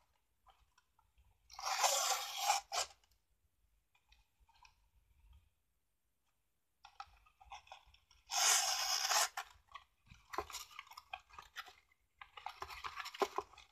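Thin cardstock crinkling and rustling as a treat box is handled and its sides folded up, with ribbon drawn through its punched holes. Two louder bursts of crinkling about six seconds apart, then lighter rustling near the end.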